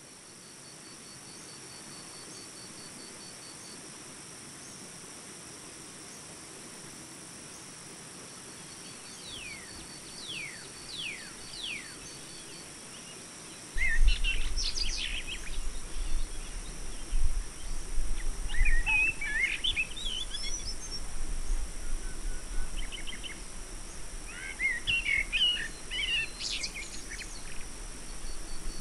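Birds chirping and calling over a steady hiss, with a faint fast high trill at first. Several quick falling whistles come around ten seconds in. From about fourteen seconds a low rumble sets in under busier bursts of chirps.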